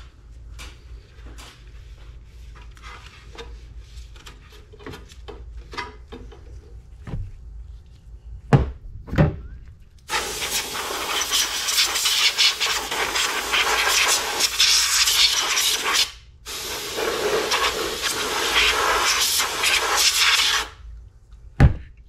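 Scattered light clicks and knocks of handling, with two louder thumps about eight and nine seconds in. Then a loud rough rustling hiss in two long stretches, broken briefly about sixteen seconds in and stopping sharply about a second before the end.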